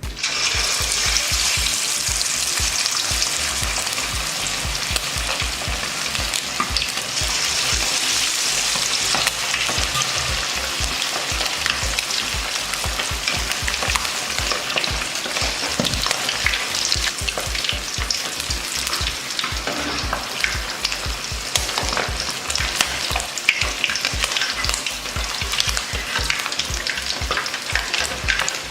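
Masala-coated quail deep-frying in hot oil: a loud, dense sizzle full of continual crackling and spitting. It starts suddenly and then holds steady.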